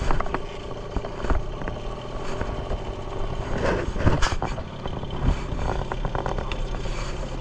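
Small boat engine running steadily, with a few short knocks over it, the loudest about four seconds in.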